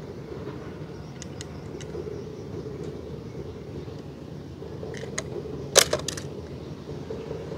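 A short cluster of sharp clicks and clatter about six seconds in, as die-cast toy cars are handled in a plastic basket, with a few fainter clicks after about a second. Under it is a steady low outdoor background rumble.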